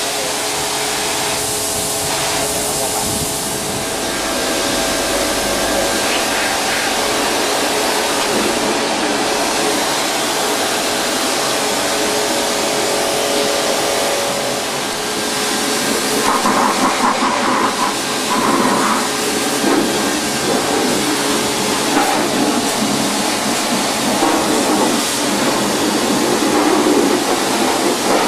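NESCO high-pressure washer running, its water jet hissing steadily as it sprays a vehicle's body panels, wheel well and tyre. The spray noise grows louder and more uneven about halfway through.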